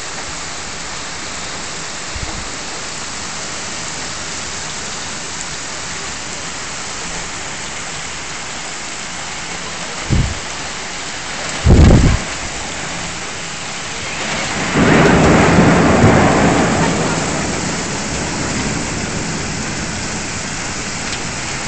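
Heavy rain pouring steadily, with two short loud bangs about ten and twelve seconds in. A rumble of thunder then swells a couple of seconds later and rolls away over several seconds.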